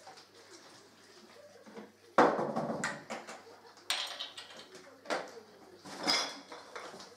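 Glass bottles clinking and knocking on a table: a loud clatter about two seconds in, then a few sharper knocks.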